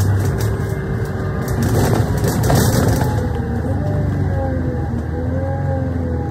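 Interior of a double-decker bus in motion: a low engine drone, with a driveline whine that rises and falls in pitch. Over it, body panels and windows rattle and creak, most busily in the first three seconds.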